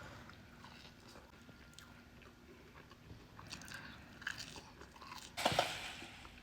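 Breathing through a clogged nose: faint wet crackling and clicking, with one louder noisy breath about five and a half seconds in.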